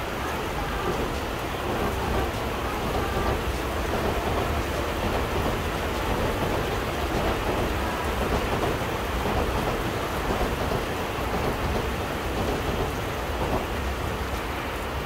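Steady rain falling on roofs and the village, with a low rumble underneath.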